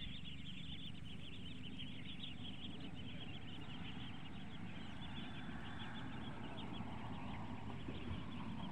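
Rural outdoor ambience: a steady low wind rumble with a dense, continuous chatter of faint high-pitched chirps.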